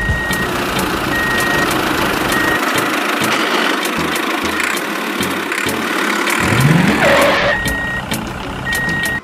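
Vehicle engine running with a reversing alarm beeping about once a second near the start and again near the end. The engine pitch rises briefly about two-thirds of the way in.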